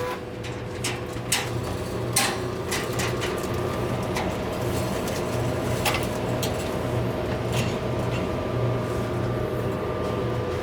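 Steady mechanical hum of an opened Vendo 511 soda vending machine, with scattered clicks and taps of parts being handled inside it.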